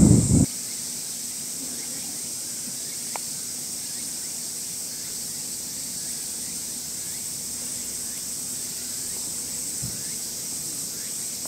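Steady high-pitched drone of summer insects, with a few faint chirps. A louder low noise cuts off abruptly about half a second in.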